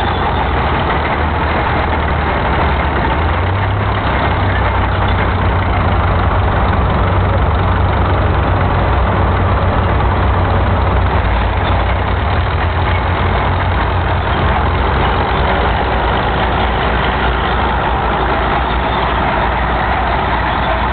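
Diesel engines of vintage Caterpillar crawler bulldozers running as they push dirt and a scraper: a steady heavy drone that swells a few seconds in and eases back a little after the middle.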